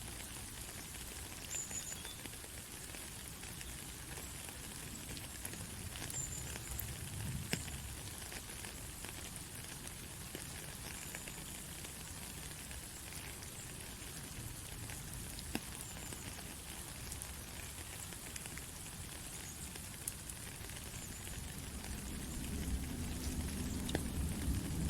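Steady rain falling, an even hiss with scattered sharper drop ticks. A low rumble builds over the last few seconds.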